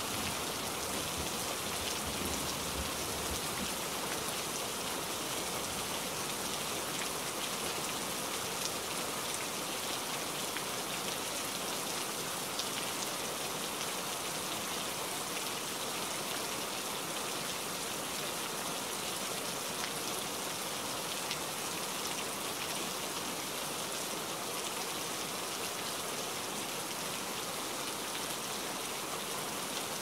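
Steady rain falling on leafy foliage: an even hiss of countless drops with occasional sharper single drops. A low rumble of thunder fades out in the first few seconds.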